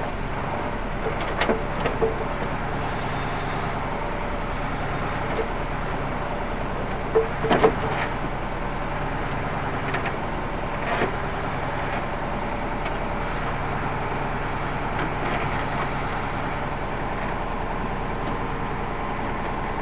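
Engine of a log-handling machine running steadily, with a few short knocks and clunks as logs are handled, the loudest group about seven to eight seconds in.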